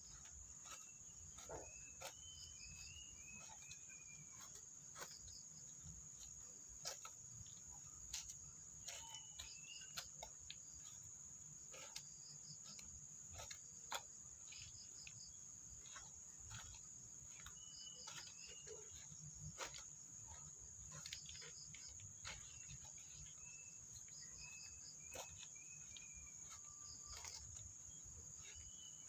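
Faint, steady high-pitched insect chorus with no break, with a bird's short warbling calls twice and scattered light clicks and knocks.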